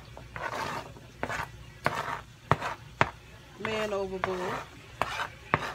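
A wooden spoon scrapes sliced cucumbers off a plastic cutting board into a bowl: short scraping rustles and sharp taps as the spoon knocks the board and the slices drop in. A brief hummed vocal sound comes about four seconds in.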